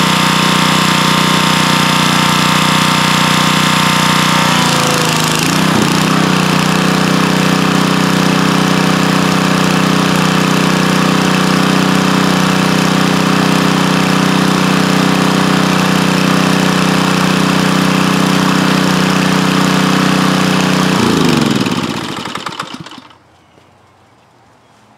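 Gas-engine pressure washer running while its wand sprays; about five seconds in the spraying stops and the engine holds a steady note. Near the end the engine is shut off and spins down, falling in pitch to a stop.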